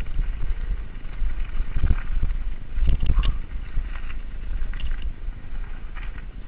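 Giant Reign mountain bike descending a dirt and gravel singletrack: a steady low rumble of wind and ground vibration on the GoPro, with tyre crunch and sharp knocks and rattles from the bike over bumps, the loudest about two and three seconds in.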